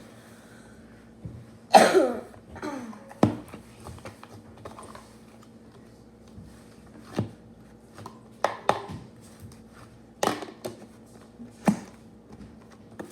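Slime being stretched and squished, with air bubbles in it popping: a scatter of short, sharp pops and clicks, one louder squelch about two seconds in.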